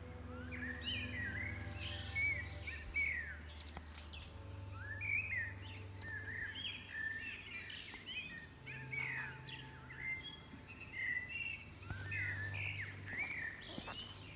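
Many birds chirping, with short overlapping calls one after another throughout, over a faint steady low hum.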